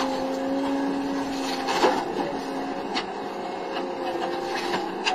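Hydraulic stump-removal attachment on an excavator grinding into a tree stump: a steady machine hum with a held whine, and wood crunching and splitting with a few sharp cracks, about two and three seconds in and near the end.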